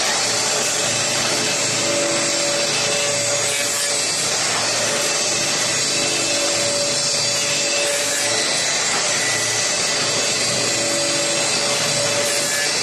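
Wooden paint brush handle making machine running, its electric motors and spinning cutter head machining wooden handle blanks: a steady, loud mix of motor running and wood being cut.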